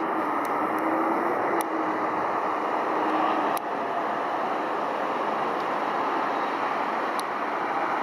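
Steady outdoor hum of distant city traffic. A faint droning tone breaks off about three and a half seconds in, and there are a few faint ticks.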